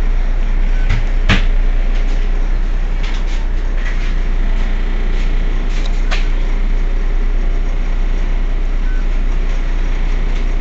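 Heuliez GX 127 city bus's diesel engine idling steadily while the bus stands at a stop, a deep constant rumble. A sharp click sounds about a second in and another around six seconds in.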